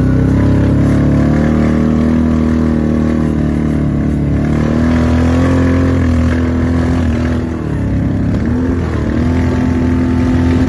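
Kawasaki Teryx side-by-side's engine running under load while driving a dirt trail. Its pitch holds steady, then drops briefly about seven seconds in and again about a second and a half later before rising back.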